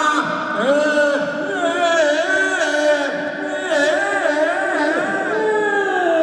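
A group of voices holding long, wavering tones together, several pitches overlapping and sliding up and down.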